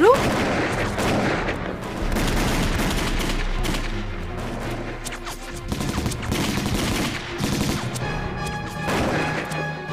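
Battle gunfire: a dense, rapid run of rifle and submachine-gun shots, with background music coming in more clearly near the end.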